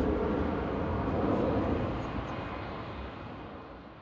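Jet aircraft climbing away after take-off, its engines a steady rumble that fades away over the last two seconds.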